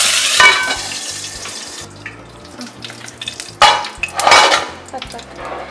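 Fresh curry leaves hitting hot oil in an aluminium kadai, setting off a loud sizzle that fades over about two seconds. Another loud burst of noise comes about three and a half seconds in.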